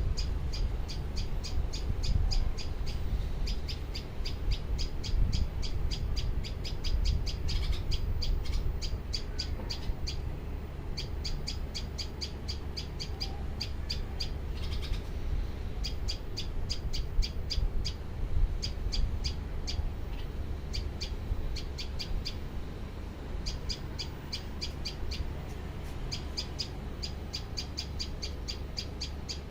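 Birds calling in rapid trains of short, high chirps, several a second, in bouts with brief pauses, over a steady low rumble.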